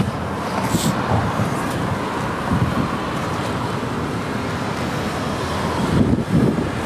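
Wind buffeting the microphone over street traffic noise, with a car driving past in the middle.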